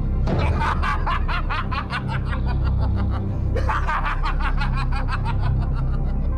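Villain's laughter in two long bouts of rapid 'ha-ha-ha', the second starting just past halfway, over a steady low background music drone.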